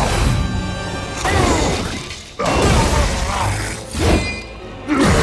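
Action-film fight soundtrack: score music mixed with crashing, shattering impacts, with a sudden hard hit about two and a half seconds in and another near the end.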